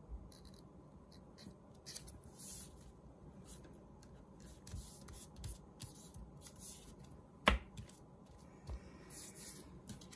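Light rustling and rubbing of paper strips as they are glued and pressed flat by hand, with one sharp tap about seven and a half seconds in.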